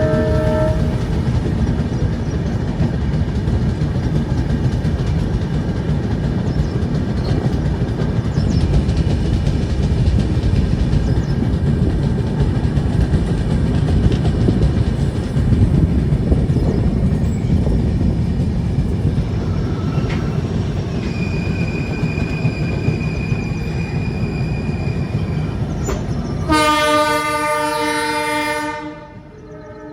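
A train running past close by, a loud steady rumble of wheels and wagons on the track. Near the end a locomotive horn sounds one long blast for about two seconds, and the tail of another horn blast is heard right at the start.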